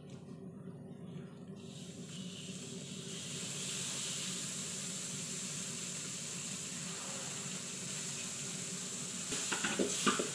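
Margarine melting in a hot pan, starting to sizzle about two seconds in and settling into a steady hiss. A few knocks near the end.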